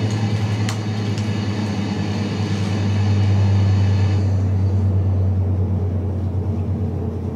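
A steady low hum, with a hiss over it that drops away about four seconds in.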